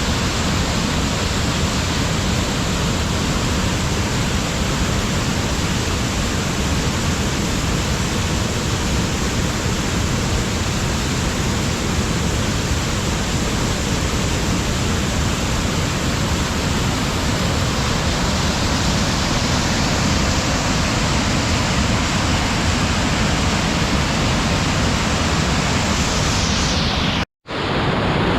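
Waterfall, a steady loud rush of falling water. About a second before the end it cuts out for a moment and comes back with less of its high hiss.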